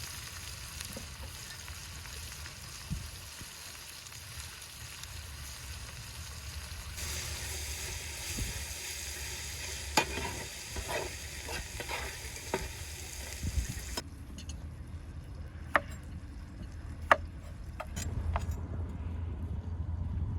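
Food sizzling in hot oil in a frying pan: a steady hiss that grows brighter about a third of the way in and then drops away suddenly about two thirds in. After that, a few sharp clicks stand out over a low rumble.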